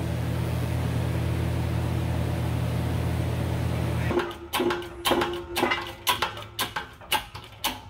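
TIG welding arc with its steady electric buzz as an old bearing race is welded to a makeshift press tool, stopping abruptly about four seconds in. After that come sharp clicks and knocks about twice a second at the shop press as the differential bearing race is being pressed in.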